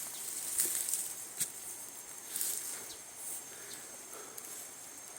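Outdoor ambience with a steady high insect drone, broken by a few brief rustles and small snaps of leaves and twigs.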